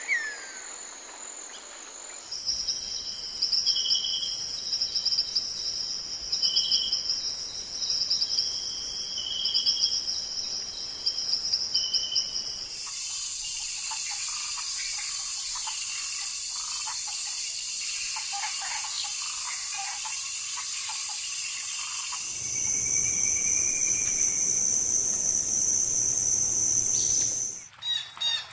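Forest insect chorus: steady high-pitched buzzing and trilling that changes abruptly several times, with short bird chirps repeating about every two seconds in the first part.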